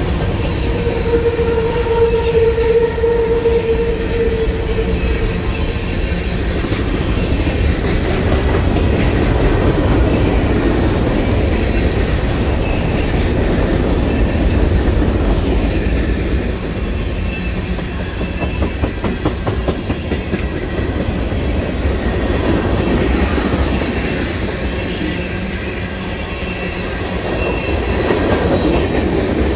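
Canadian Pacific freight train's hopper and tank cars rolling past close by: a continuous rumble of wheels on rail with clicking as the wheels cross rail joints. A steady tone sounds for a few seconds about a second in.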